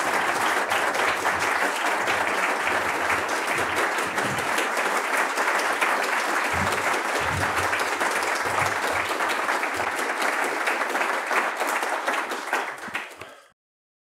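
Audience applauding, a steady round of clapping that dies away near the end.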